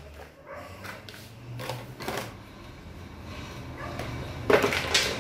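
Black plastic modular shelf parts being handled: soft rustling and a few light knocks, then a louder clatter of the hollow plastic post tubes knocking together near the end.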